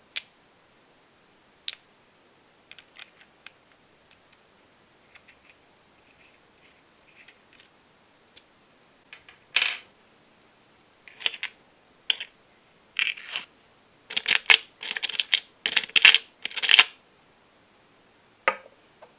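Small metal model-engine parts and screws being handled: scattered light clicks and clinks, then a cluster of louder metallic clinks and rattles a little past the middle, and one more clink near the end.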